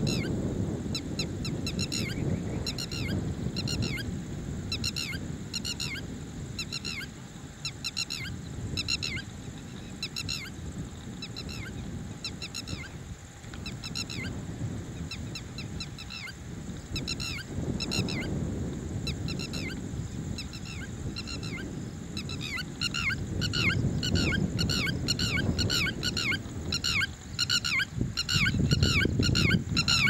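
Red-wattled lapwing calling: repeated short notes in quick groups of several, coming faster and closer together in the last third. A low rumble of background noise lies underneath.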